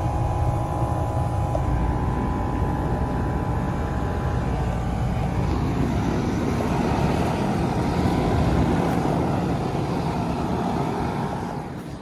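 A 2006 Rheem Classic 3-ton central air conditioner's outdoor condensing unit running: the compressor and condenser fan make a steady, low-heavy hum and rush of air, growing fainter near the end.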